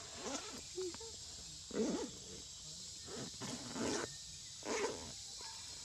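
Macaques giving a few short calls, the loudest about two seconds in, over a steady high insect drone.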